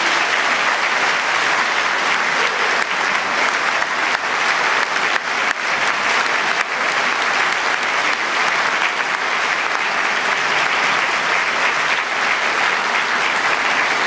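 Concert audience applauding, a dense, steady clapping that holds at the same level throughout.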